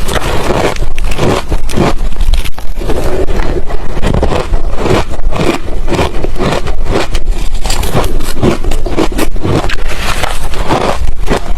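A person chewing ice close to the microphone: a dense, unbroken run of loud crunches and crackles.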